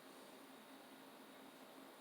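Near silence: steady room tone with a faint hiss and a faint low hum.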